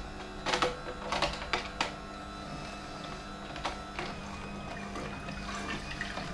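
Philips masticating juicer running, a steady motor hum as its screw auger presses fruit. Several sharp knocks and clicks come in the first two seconds, with a couple more faint ones later.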